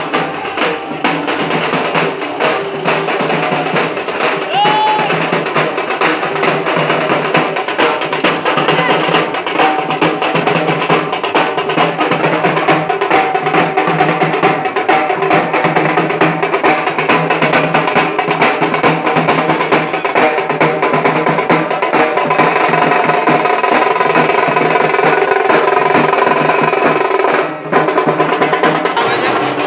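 Loud procession music: rapid, continuous drumming with sustained pitched tones over it.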